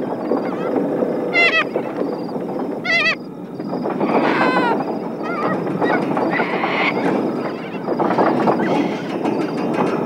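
An old windmill's iron-and-sheet-metal wheel turning in the wind, with a steady metallic rattle and clatter and high wavering squeals about every second and a half in the first half.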